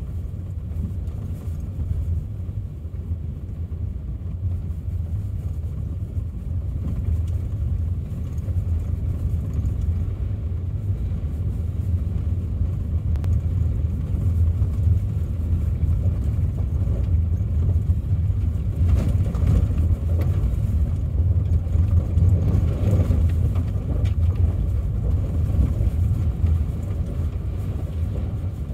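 Steady low rumble of a car on the move, tyre and engine noise heard from inside the car, swelling a little past the middle.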